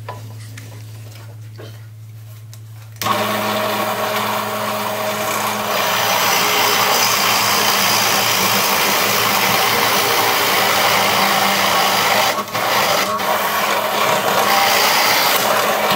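Drill press motor humming as it spins up, then about three seconds in a 1-inch Forstner bit starts boring into a pine 2x4, a loud steady cutting noise that runs on with two brief breaks near the end as the bit is eased back.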